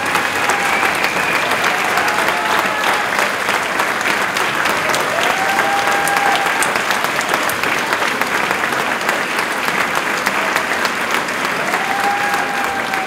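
Audience and choir applauding: steady, dense clapping.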